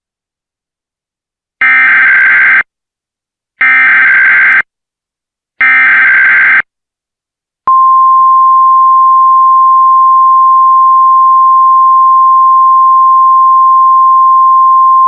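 Emergency Alert System SAME header: three one-second bursts of warbling digital data tones a second apart, encoding a test Blue Alert under the new BLU event code. About seven and a half seconds in, the single steady 1050 Hz weather-radio alert tone starts and holds.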